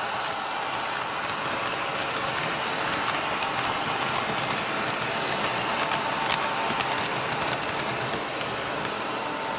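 Wheels of H0 model hopper wagons rolling along the track close by: a steady rushing rattle with scattered sharp clicks as the wheels cross the rail joints.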